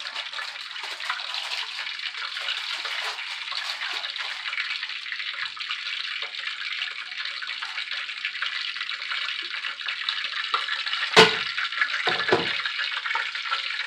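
Hot cooking oil hissing and crackling steadily in a lidded frying pan as it heats up. A sharp clank about eleven seconds in, and a smaller one just after, as the glass lid is lifted.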